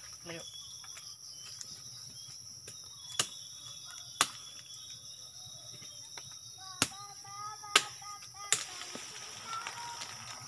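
Steady high-pitched drone of insects, crickets or cicadas, with several sharp clicks scattered through it and a few faint chirps near the middle.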